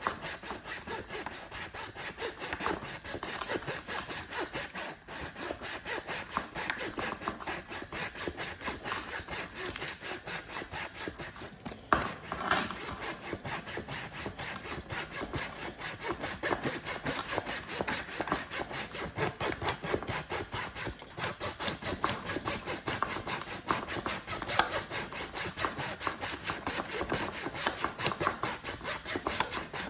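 Handsaw cutting through wood in quick, even back-and-forth strokes, with a brief pause about five seconds in and a single knock around twelve seconds in.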